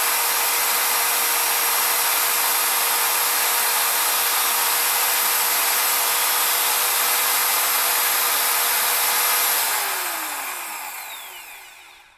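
Makita corded hammer drill running free at a steady full speed, held on by its trigger lock-on button. After about nine and a half seconds it is switched off and the motor winds down with a falling whine until it stops.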